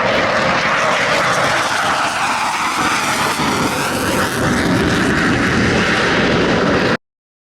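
Jet roar of a CF-18 Hornet's twin General Electric F404 afterburning turbofans as the fighter makes a display pass, a loud, steady roar with a sweeping, phasing tone in its upper range. It cuts off abruptly near the end.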